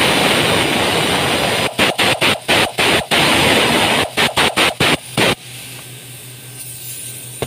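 Pneumatic ratchet wrench on its air hose, running with a loud hiss: one steady run of nearly two seconds, then a string of short trigger bursts that stop about five seconds in.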